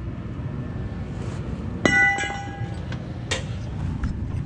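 A heavy piece of broken steel ring gear clanks against metal scrap about two seconds in, with a bright ringing that dies away within a second. A second clink follows right after, and a lighter knock about a second later.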